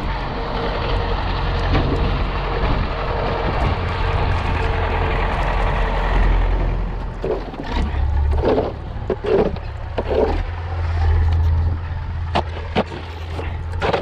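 A Belarus MTS-50 tractor's diesel engine runs steadily while it clears snow. About halfway through the sound changes to a snow pusher scraping over the snowy ground in several short strokes, with a few sharp knocks and a low rumble behind.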